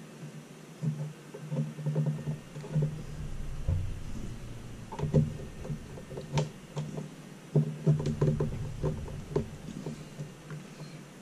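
Hands handling small parts and a case on a desk: irregular clicks, taps and light knocks in clusters, the sharpest click about six and a half seconds in.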